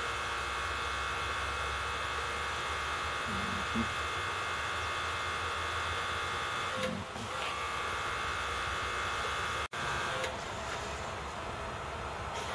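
Steady electric machinery hum with a whine of several fixed tones, dropping out for an instant about three seconds before the end.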